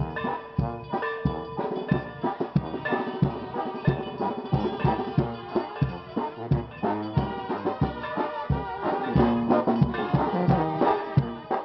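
Music with drums keeping a steady beat under a melody of sustained pitched notes.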